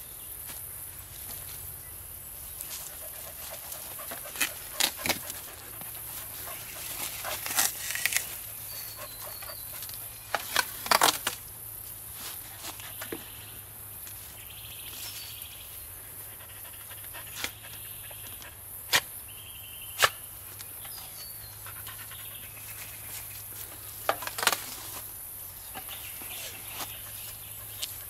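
Scattered knocks and clunks as native stingless bee hive boxes are handled and shifted, over a steady high-pitched insect chorus.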